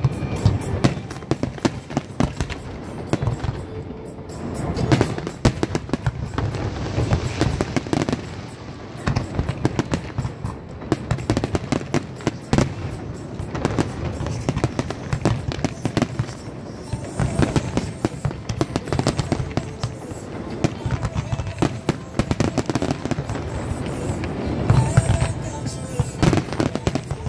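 Aerial fireworks display: a dense, continuous barrage of shell bursts and crackling, with the heaviest volley about 25 seconds in.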